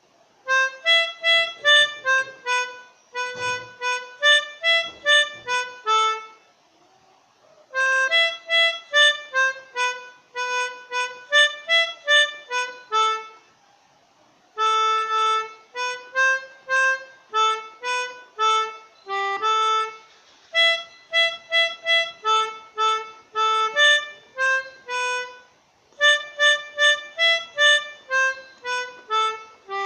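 Pianika (melodica) playing an Indonesian 'telolet' bus-horn tune. The notes are quick and short, in runs broken by brief pauses.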